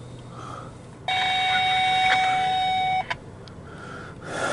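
A scanner radio tuned to railroad traffic gives a steady electronic beep over radio hiss, starting about a second in and cutting off sharply about two seconds later. A burst of static rises near the end.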